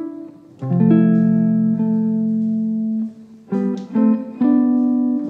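Background music of plucked guitar: a chord rings for a couple of seconds, then a run of quicker plucked notes.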